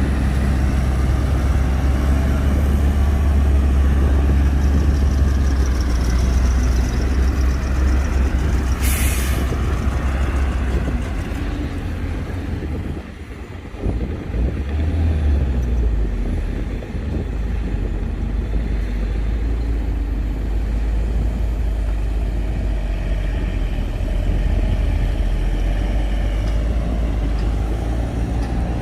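Heavy diesel earthmoving machinery working, its engine running loud and low and swelling up and down in pitch under load. A short burst of hissing air comes about nine seconds in, and the rumble dips briefly around thirteen seconds.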